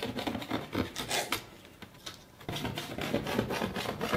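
Knife sawing back and forth through a sheet of sponge cake along a metal guide edge: quick repeated strokes, several a second, with a pause of about a second in the middle.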